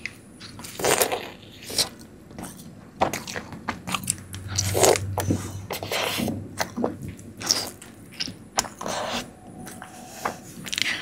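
Close-miked eating: a person biting into and chewing Indian sweets, in irregular bursts of bites and mouth sounds.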